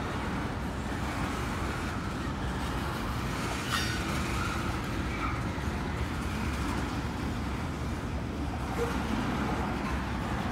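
Freight train cars rolling slowly past, a steady low rumble, with one sharp knock about four seconds in.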